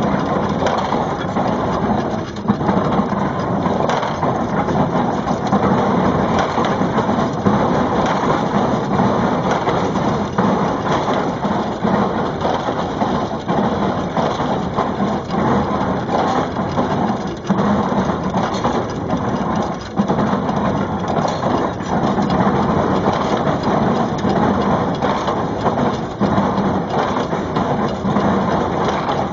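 Baler driven by a steam traction engine, working steadily: a dense, continuous clatter and crushing noise with a low pulse recurring every couple of seconds.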